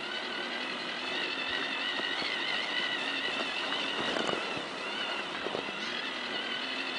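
Whine of a Tamiya CR-01 radio-control crawler's electric motor and gearbox, wavering in pitch as the throttle and load change while it drives through wet snow. A few short knocks come around four seconds in.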